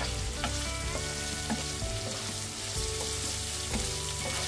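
Sliced onions and green chillies sizzling in hot oil in a frying pan as they are stirred with a wooden spatula, with a few light knocks of the spatula against the pan.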